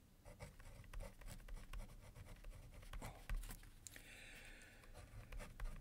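Marker pen writing on paper: a run of faint, short scratching strokes as a word is written out, a little louder about four seconds in.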